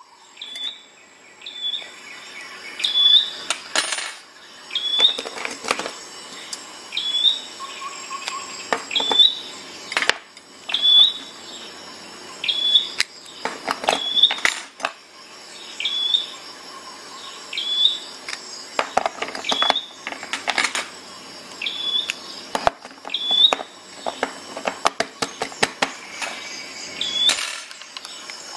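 Clicks and knocks of Lansky sharpening hones and their plastic case being handled. A short high chirp recurs every second or two behind them.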